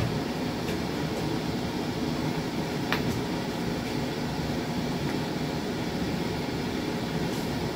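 Heat recovery ventilator (HRV) running, its fans giving a steady hum and rush of air through the flexible ducting. A single light click about three seconds in.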